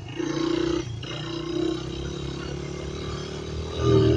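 Dirt bike engine running as the bike rides across grass, revving up briefly just after the start and again, louder, near the end.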